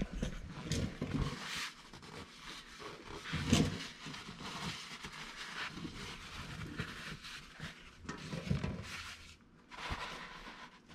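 Scattered handling noises: rubbing and light knocks of parts and tools being worked by hand, the loudest a brief knock about three and a half seconds in.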